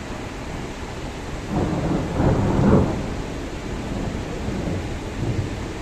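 A rumble of thunder swells about a second and a half in, peaks near three seconds and dies away, over a steady rushing hiss.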